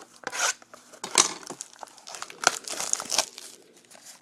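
Crinkling and rustling of a baseball card pack's wrapper and cards being handled, in irregular bursts.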